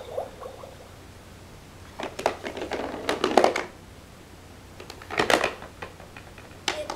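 Plastic clattering: a Little People polar bear figure rattling down the plastic slide of the Fisher-Price zoo playset, then a second short burst of clicks as plastic figures are handled, and one more click near the end.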